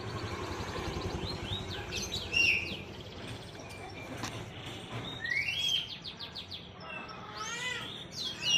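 Several small birds chirping and calling: short downward-sliding whistles and fast rattling trills, the loudest calls about two seconds in and again at the end, over a steady low rumble.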